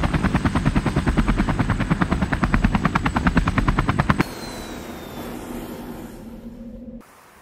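Light helicopter flying close by, its main rotor giving a loud, rapid, even blade chop. About four seconds in the chop stops abruptly, leaving a quieter steady rotor and engine noise. Near the end that sound drops away to a low hiss.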